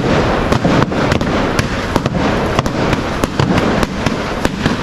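Fireworks and firecrackers going off from a burning falla: sharp cracks and bangs, several a second at an irregular pace, over a loud steady din.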